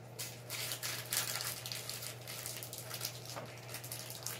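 Pokémon trading cards and foil booster-pack wrappers being handled, giving irregular crinkling and rustling, over a steady low hum.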